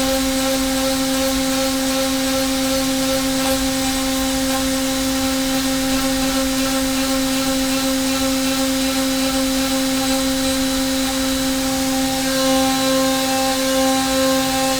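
CNC machining centre spindle driving a 4.5 mm three-flute carbide end mill, high-feed trochoidal roughing in dry aluminium: a steady, pitched cutting tone over a hiss of flying chips. About twelve seconds in a higher tone joins and the cut gets slightly louder.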